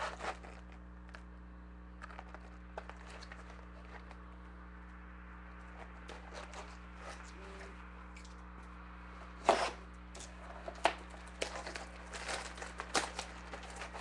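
Clear cellophane shrink wrap on a sealed trading-card box being picked at and torn off, in a run of sharp crinkles and crackles that starts about two-thirds of the way in. A low steady electrical hum runs underneath.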